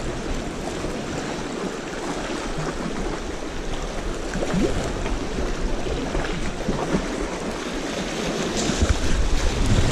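Sea waves washing on the shore, a steady rushing noise.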